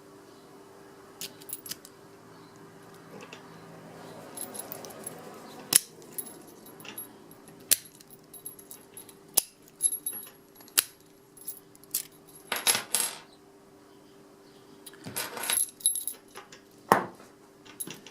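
A 38 mm brass padlock being worked with its keys: a run of sharp metallic clicks and key jingles, with two longer rattles in the second half.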